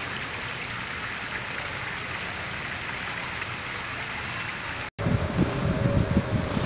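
Fountain jets splashing into a stone basin, a steady rushing hiss. About five seconds in it cuts off, and wind gusts buffet the microphone with uneven low rumbles.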